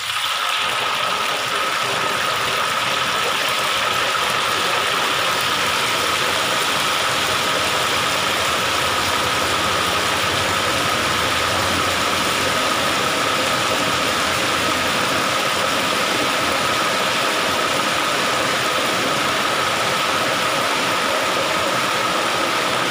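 Hot oil in a wok sizzling loudly as a thin white batter is poured in around pieces of tofu and fries into a crispy crust. The sizzle starts suddenly as the batter hits the oil and then holds steady.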